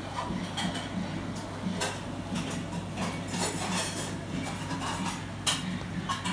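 Scattered light clinks and knocks over a steady low hum, with faint voices in the background.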